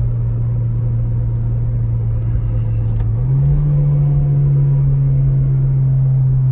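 Mitsubishi Lancer Ralliart's turbocharged 2.0-litre four-cylinder engine droning steadily at low speed. About three seconds in, its pitch steps up slightly and it gets a little louder.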